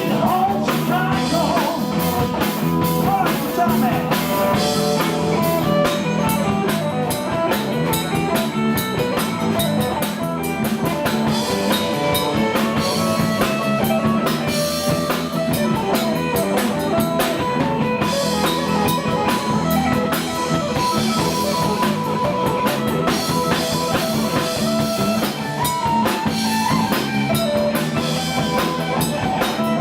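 Live blues-rock band playing at a steady loudness, with a drum kit and guitar.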